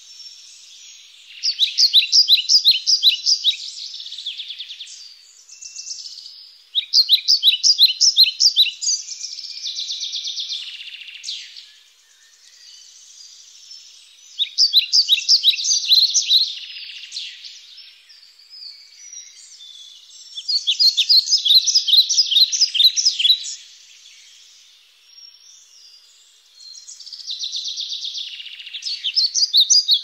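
Small songbird singing, a short fast run of high notes about every six seconds, five times, with softer twittering from other small birds in between.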